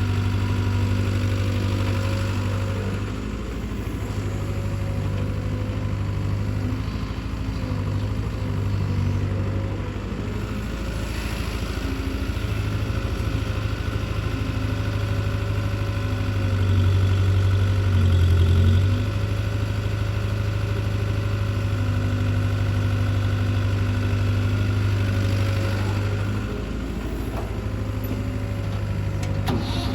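Heavy diesel engine running steadily at low revs. It swells louder for a couple of seconds about 17 seconds in, as if briefly taking load.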